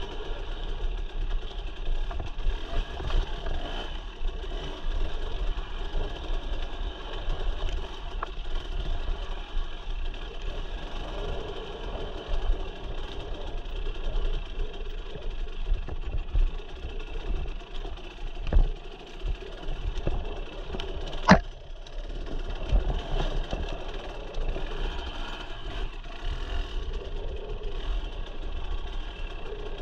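Dirt bike engine running steadily as the bike rides a rocky trail. Two sharp knocks come about two-thirds of the way through, the second the loudest.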